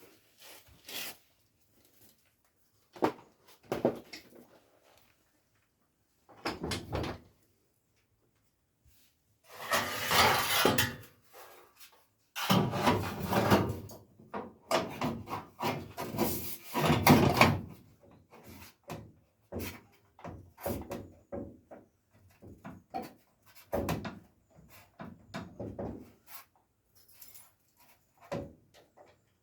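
Hands-on bodywork noises: separate knocks, clunks and scrapes of metal parts being handled and offered up to the car body. The loudest stretch is a long run of scraping and rattling in the middle, followed by lighter clicks and taps.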